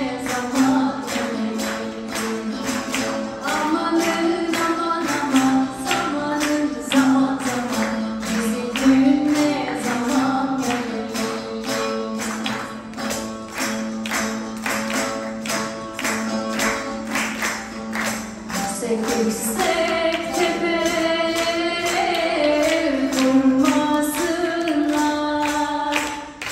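Live Turkish folk music: a bağlama (long-necked lute) picked in a fast, even rhythm while a woman sings the melody. The melody climbs higher about twenty seconds in.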